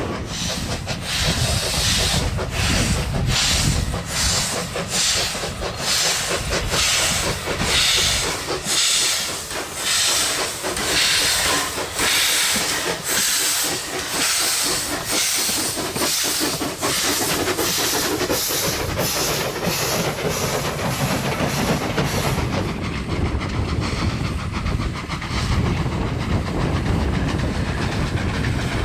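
Two small steam tank locomotives, D 140 and F 13 'Peveril', double-heading a passenger train under steam: a steady rhythm of exhaust chuffs, about two a second. Near the end the chuffs fade and a lower rumble of the train on the rails takes over.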